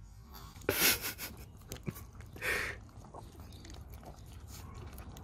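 Two small dogs licking peanut butter off a spoon, with wet smacking and mouth noises, and two short louder bursts about a second in and about two and a half seconds in.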